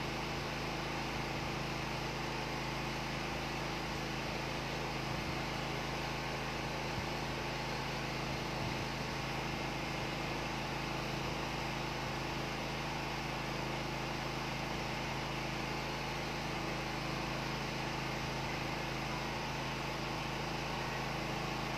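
Steady room noise: an even hiss with a low hum underneath, unchanging throughout.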